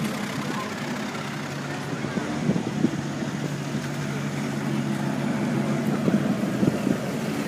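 Car engines idling with a steady low hum, with a few short louder blips, and people talking in the background.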